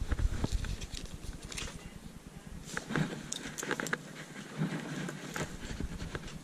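Plastic clothes hangers clicking and knocking against each other and the rail, with fabric rustling, as a rack of jeans is flicked through by hand. The clicks are sharp and scattered, bunched near the start and again around three to four seconds in.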